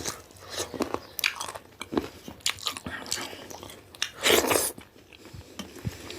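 Close-miked eating sounds: chewing and biting with wet mouth clicks and crunches, as rooster curry and millet dhido are eaten, with one longer, louder mouth noise about four seconds in.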